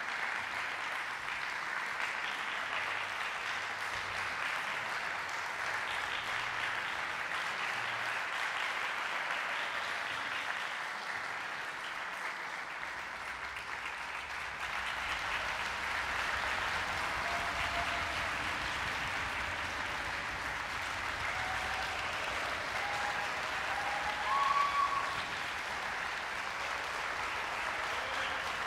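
Concert-hall audience applauding steadily after an orchestral performance, with a few brief pitched calls over the clapping in the second half.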